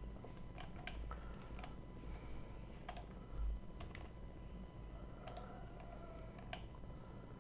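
Computer keyboard keystrokes and mouse clicks, a handful of sharp taps spaced a second or more apart, over a faint low hum.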